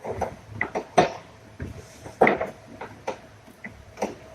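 Open-end wrench clinking against the top strut-mount nut as it is worked loose: about half a dozen irregular metallic clicks as the wrench is turned and repositioned.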